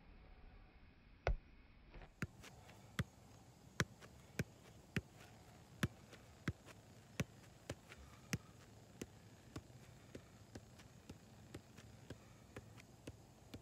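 Soccer ball being juggled, the foot touching it in a steady rhythm of about two touches a second, some louder than others.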